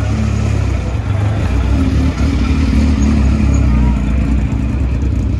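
A modified rally car's engine running steadily at low revs, loud and close.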